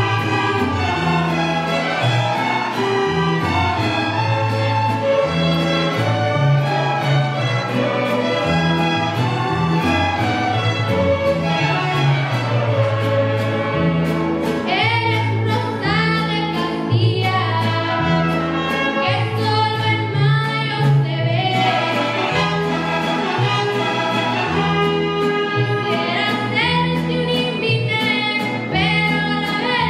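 Student mariachi ensemble playing, violins over a plucked bass line that steps from note to note. About halfway through, a girl's lead vocal comes in over the band.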